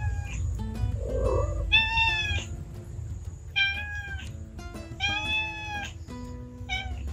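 Cat yowling during a standoff with another cat: three drawn-out yowls about a second apart, each rising slightly and then falling.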